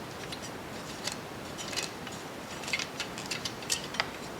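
Small, irregular metal ticks and clicks of a valve core tool twisting a Schrader valve core into a bicycle tire's valve stem.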